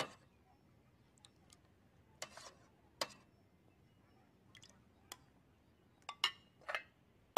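Light clinks and taps of a bowl and utensils at an electric rice cooker, about a dozen short, scattered knocks.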